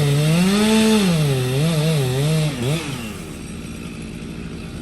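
Small petrol-engined stump grinder running hard, its engine note rising and falling again and again for about three seconds, then settling into steadier, somewhat quieter running.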